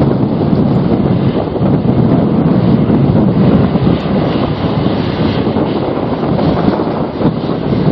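Strong storm wind buffeting the microphone: a loud, continuous rumbling roar that swells and eases with the gusts.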